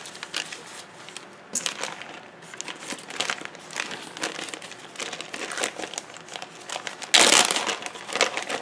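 A plastic zip-top bag crinkling as it is handled, in irregular rustles, with one loudest crinkle about seven seconds in.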